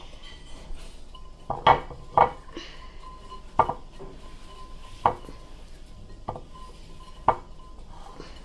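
Wire whisk knocking and clinking against a glass mixing bowl while cornbread batter is whisked: about six sharp, separate knocks a second or so apart.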